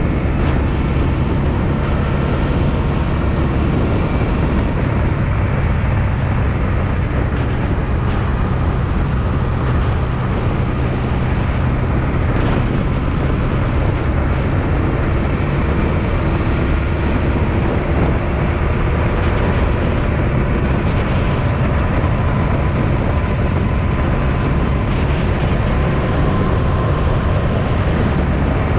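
Honda Transalp XL650V's V-twin engine running at a steady pace under way, with a constant broad hiss of wind over it.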